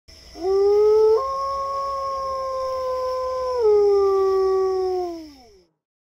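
A wolf's single long howl, held steady in pitch with a sudden step up about a second in and a step down partway through, then sliding down and fading out.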